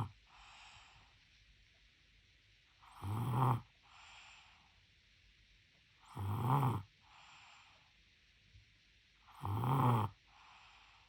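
A sleeping baby snoring in a slow, even rhythm: three loud, buzzy snores about three seconds apart, each followed by a softer, airy breath.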